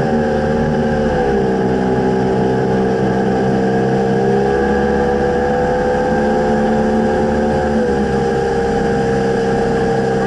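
Outboard motor driving a small fishing boat along at a steady cruising speed, its pitch dipping and rising slightly a few times.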